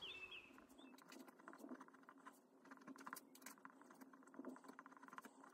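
Faint, quick scratching and tapping of a pen writing on paper, over a low steady hum.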